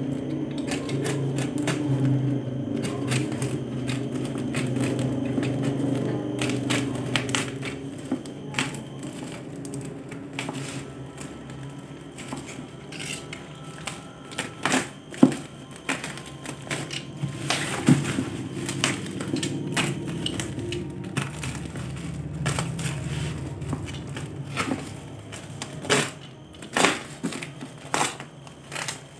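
Black plastic parcel wrapping being cut open by hand, with crinkling plastic and many sharp snips and clicks that come thicker in the second half, over a steady low hum.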